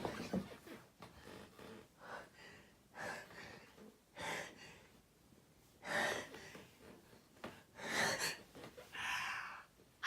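A person's short, gasping breaths, about six of them a second or so apart, the catching inhalations of someone building up to a sneeze.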